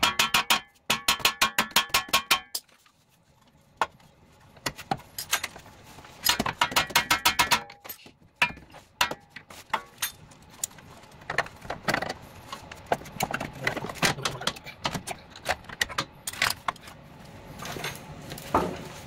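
Ratchet wrench clicking in quick, even runs of metallic clicks, one at the start and another around six to eight seconds in. Scattered clicks and light metal knocks of tools on suspension parts fill the gaps.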